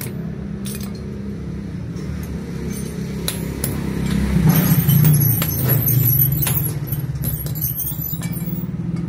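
A motor engine running steadily, growing louder about halfway through and then easing off, with scattered sharp metallic clinks.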